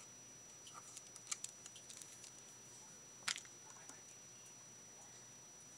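Faint, scattered small clicks of beads knocking together as they are handled and slid onto a pokie tool's shaft, one slightly louder click about three seconds in.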